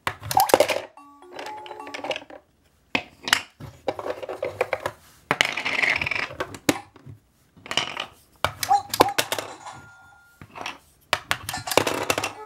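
Plastic coins of a Fisher-Price Laugh & Learn piggy bank toy dropping through the slot and clattering into its plastic belly, one after another. Short electronic tones and jingles from the toy sound between the drops.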